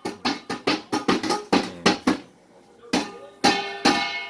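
A plucked string instrument, strummed and picked in quick runs of notes, with a pause of about a second in the middle.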